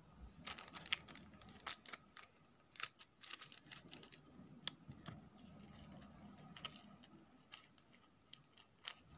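Faint, irregular clicks and crinkles of a small plastic zip-lock bag of foam beads being handled, opened and tipped toward a plastic cup, busiest in the first three seconds.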